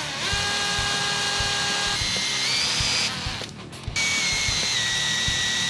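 Power drill running as it bores into a foam squishy toy, with a steady motor whine. It stops briefly about three seconds in, then starts again at a slightly lower pitch.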